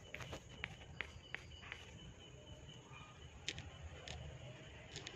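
A few faint, sharp clicks and light taps as a neon test pen's metal tip is handled against a transformer's metal parts. Insects chirp faintly and repeatedly in the background.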